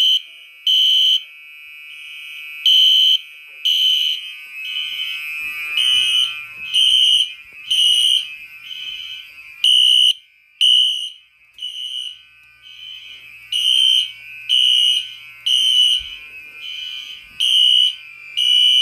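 Fire alarm horns sounding in the temporal-three evacuation pattern: loud high-pitched beeps in groups of three, over a steady high tone. From about six seconds in, a second horn's beeps overlap the first's without keeping time with them, so the two are out of sync.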